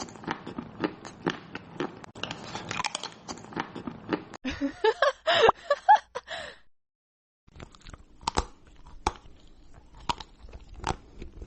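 Close-up crunchy chewing and biting, dense crackling at first, with a brief pitched sound about five seconds in; after a short silence the crunching goes on in sparser, separate cracks.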